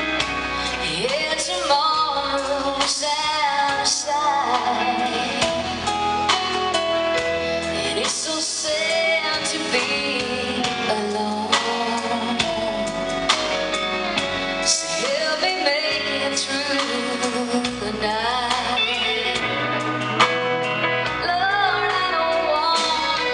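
A woman singing a country song live, with guitar accompaniment.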